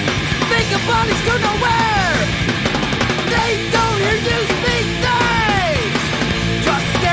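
Loud hardcore punk recording: distorted electric guitar, bass and drums playing together, with several falling pitch glides through the passage.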